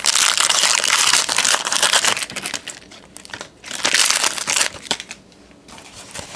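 Plastic-foil trading card pack wrapper crinkling as it is torn open and handled: a crackly rustle about two seconds long, a shorter burst about a second later, then only a few faint ticks.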